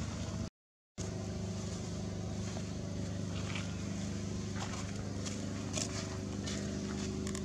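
A steady low engine drone made of several even tones, like a motor idling, with a few faint crackles over it. The sound cuts out completely for about half a second near the start.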